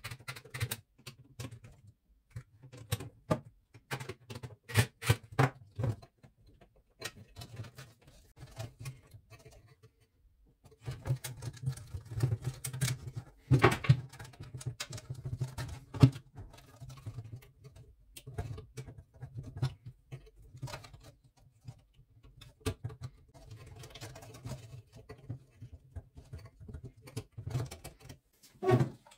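Irregular clicks, taps and rustles from hands working inside a small inverter welder's plastic housing: wires, spade connectors and the circuit board being pushed back into place. Busier clatter runs from about 11 to 17 seconds, with a few sharper knocks.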